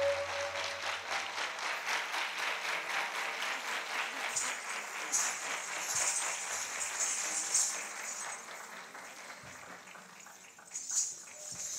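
Audience applauding as the dance music ends, thinning out over the last few seconds, with a brief louder rise near the end.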